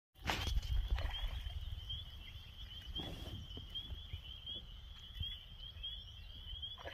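A steady, high-pitched pulsing animal call, about six pulses a second, over a low rumble on the microphone.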